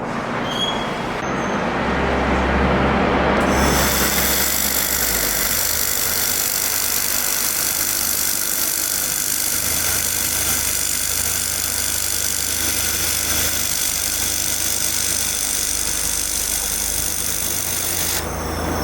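Laser welding machine running: a steady low hum, joined about four seconds in by a high-pitched whine of several steady tones that cuts off shortly before the end.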